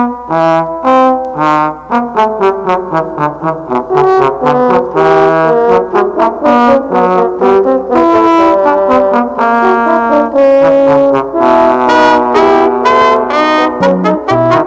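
Brass band music: a tune of quick, short notes played by several brass instruments together.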